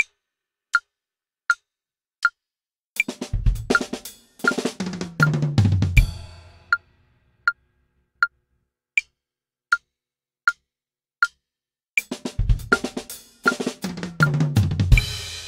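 A metronome clicking steadily at about 80 beats a minute, with two drum fills on a Yamaha kit about three and twelve seconds in. Each fill runs down the toms from high to low and ends on a cymbal and bass drum hit left ringing.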